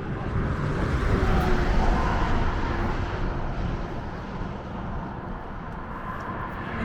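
Steady low rumble of road traffic, with wind on the microphone, swelling about a second in and easing off again.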